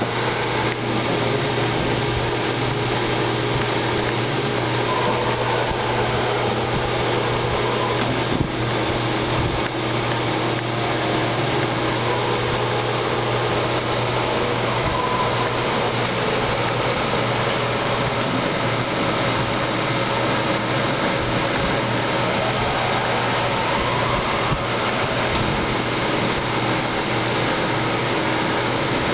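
Daewoo ACE-V50 vertical machining center running: a steady mechanical hum and hiss, with a fainter whine that rises and falls a few times and a single click about eight seconds in.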